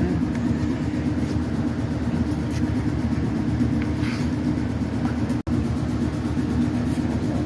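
Steady low mechanical drone, like a motor or engine running, broken by a momentary gap about five and a half seconds in.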